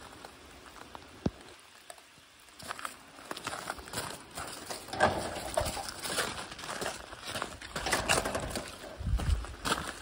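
Footsteps crunching on loose gravel, uneven and getting busier after a brief lull, with a single sharp click early on and a low muffled thud near the end.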